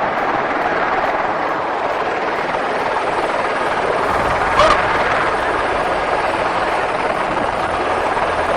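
Helicopter running steadily on the ground, its rotor and engine making an even, unbroken rush; a brief short chirp cuts in about halfway through.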